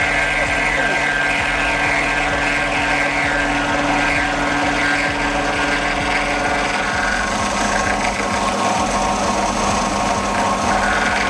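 Knee-type milling machine running steadily, its cutter milling the part while the table is fed by hand, a constant machine hum with a band of cutting noise above it that eases off after about seven seconds.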